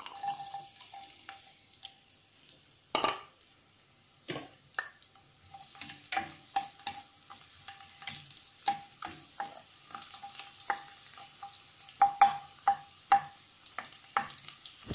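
Sliced garlic sizzling in hot oil in a stainless steel pot. A plastic spoon stirs it, clicking and scraping against the pot many times, more busily from about six seconds in.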